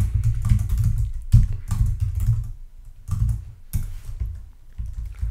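Typing on a computer keyboard: an uneven run of keystrokes with dull thuds, easing off briefly a little past the middle.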